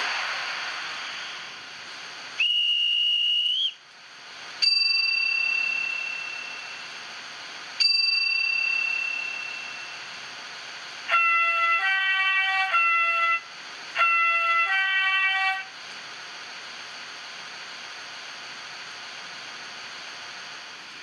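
Sound-decoder effects from model electric locomotives, played through their small onboard speakers. A fading hiss comes first, then a short high whistle tone and two single chime tones that ring and fade. Last comes a two-note horn sounded twice, each blast stepping between a higher and a lower chord.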